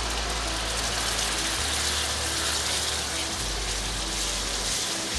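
Hot caramel sizzling in a steady hiss as cold whipping cream is poured into it and stirred with a silicone spatula.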